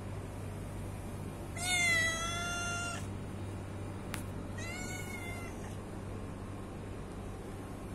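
Domestic cat meowing twice, a long loud meow followed a couple of seconds later by a shorter, fainter one: a hungry cat asking for food.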